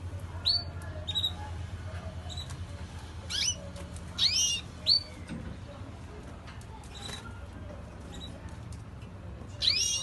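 Small caged finches calling: short, sharp chirps, with louder chirps that sweep down in pitch about three to five seconds in and again near the end. A steady low hum sits under them and fades about halfway through.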